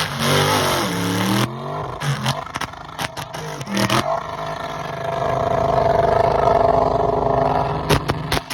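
Burnout truck's engine revving, its pitch dipping and rising in the first seconds, then held high and loud for a few seconds from about five seconds in.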